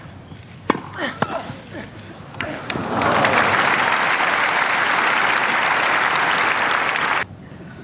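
A few sharp tennis-ball strikes in the first two seconds or so as the rally on grass finishes. Then a large stadium crowd breaks into loud applause about three seconds in, which cuts off suddenly near the end. The applause greets the point that wins McEnroe the second set.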